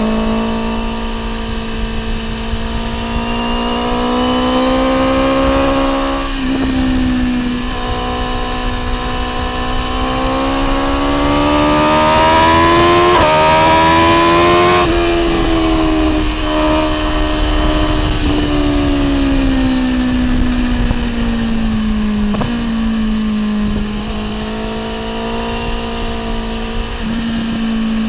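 BMW S1000R M inline-four engine with an Akrapovic exhaust, ridden at moderate throttle. The pitch climbs steadily, drops briefly at quick gear changes, then falls away about halfway through as the throttle is eased before pulling again.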